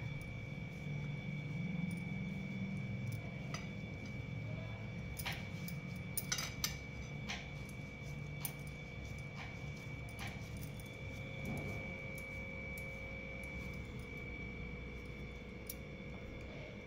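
Scattered light clicks and clinks, typical of glass bangles and fingers against a steel plate as hands press besan ladoo mixture into balls. Under them runs a steady background hum with a thin high whine.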